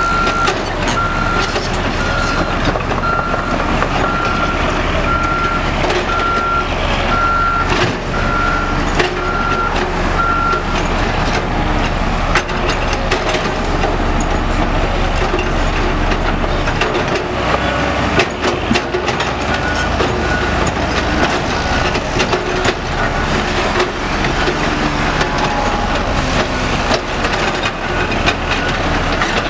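Heavy diesel road-construction machinery running with a steady low rumble and clatter. A reversing alarm beeps about once a second and stops about ten seconds in.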